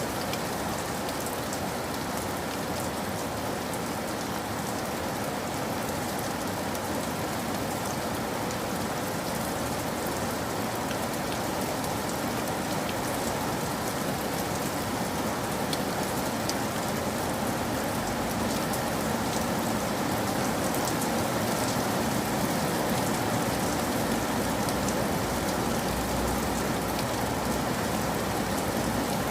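Steady rain falling, an even hiss of drops with scattered individual drop ticks, unchanging throughout.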